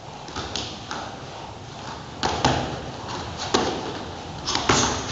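Bare feet stamping on foam gym mats and kicks and punches landing on a training partner during a fast martial-arts combination: a string of sharp thuds and slaps in a large room, the loudest about two, three and a half, and four and a half seconds in.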